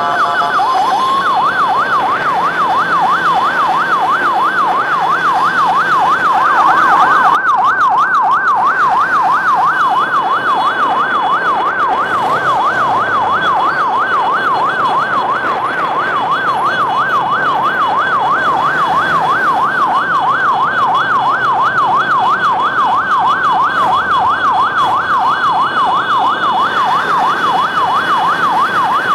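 Electronic siren sounding in a fast yelp, its pitch sweeping up and down about three times a second without a break, over the noise of motorcycle traffic.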